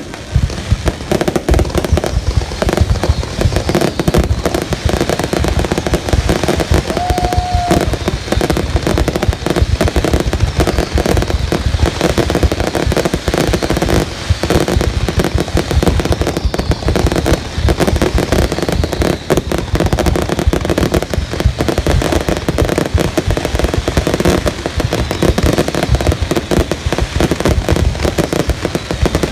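Fireworks going off in a dense, continuous barrage of rapid bangs and crackles with no let-up. A brief steady tone sounds about seven seconds in.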